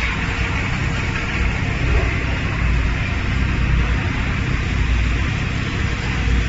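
Automatic paper pulp egg tray production line running: a steady low mechanical rumble under a constant hissing noise.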